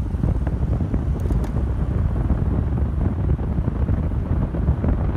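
Heavy wind buffeting the microphone over a steady low road rumble, as heard from a moving vehicle.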